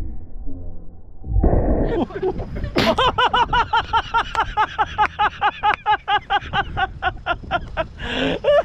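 A sudden loud noisy burst about a second and a half in, then a long fit of rapid, high-pitched laughter, about four to five laughs a second, broken by a sharp gasp for breath near the end.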